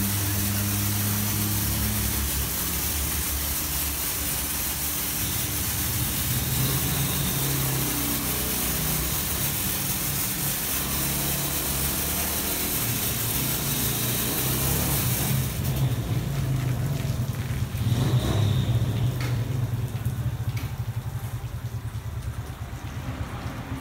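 Kärcher rollover car wash running: high-pressure water spray hissing over a steady low hum from the wash's pump and drive motors. The spray cuts off suddenly about two-thirds of the way through, leaving the motor hum and the rotating brushes.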